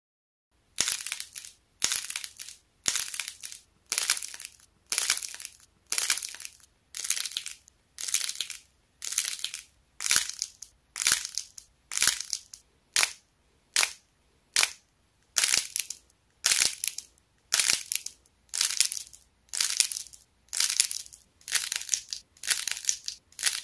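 Hardened clay envelope shapes crackling and crunching as they are squeezed and bent by hand, their stiff outer shell breaking up. The cracking comes in short bursts about once a second, starting about half a second in.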